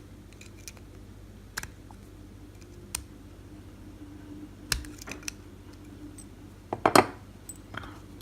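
Scattered small metal clicks and taps from a lock cylinder being worked apart with tools, about half a dozen separate clicks with the loudest cluster near the end, over a low steady hum.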